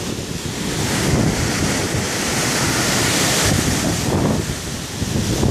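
Strong gusty wind rushing through a large tree's branches and leaves, swelling about a second in and easing near the end, with wind buffeting the phone's microphone in a steady low rumble.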